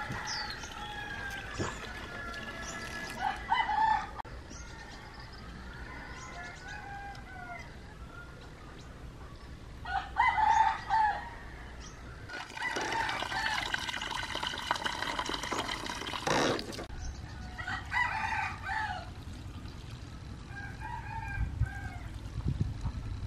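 Rooster crowing several times, with hens clucking and small bird chirps in between.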